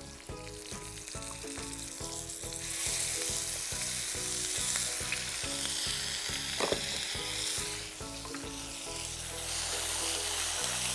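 Ginger-garlic paste sizzling in hot ghee and groundnut oil in a cast-iron skillet, stirred with a wooden spatula. The sizzle grows much louder about three seconds in, eases off around eight seconds and swells again near the end, over soft background music.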